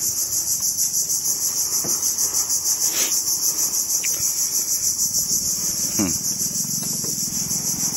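Mangrove-forest insects calling: a continuous high-pitched drone that pulses several times a second.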